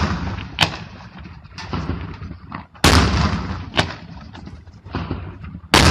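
Aerial firework shells bursting: loud booms about every three seconds with sharper, smaller cracks between them, each bang trailing off in an echoing rumble.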